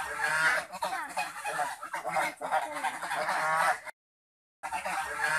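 Several domestic geese honking and chattering in a dense, overlapping run of calls. The sound drops out to dead silence for under a second about four seconds in, then starts again.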